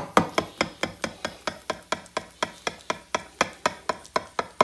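A metal knife chopping through baked lasagna and knocking on the bottom of a glass baking dish, a quick, even run of sharp knocks about five a second.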